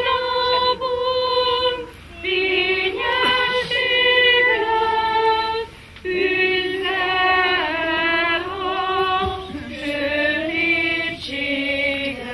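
A choir of children and women singing a slow song together, in held phrases with short breaths between them.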